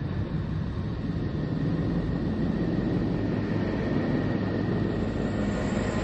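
The 'sound of Neptune' space recording: a steady, rumbling drone with a faint high hum, swelling in over the first second and then holding level.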